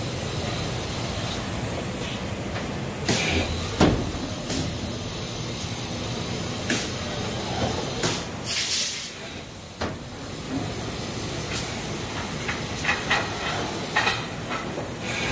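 Automated rotary-table packaging machine running, with a steady mechanical hum and its pneumatic actuators clacking at irregular intervals. A loud burst of compressed-air hiss comes about eight seconds in.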